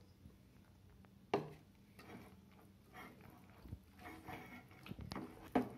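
Soft vada dough of ground soya and roasted gram flour being worked by hand in a stainless steel bowl, with faint rustling and a few light knocks against the metal. The sharpest knock comes about a second and a half in.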